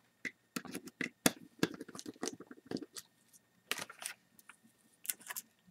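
A string of irregular small clicks and light taps: a magnetic-tipped precision screwdriver working tiny screws out of a plastic webcam housing, and the little screws being handled and set down.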